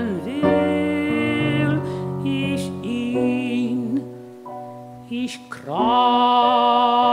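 A male voice singing a German art song with grand piano accompaniment: sung phrases with vibrato over held piano chords, softer about four to five seconds in, then a long held sung note near the end.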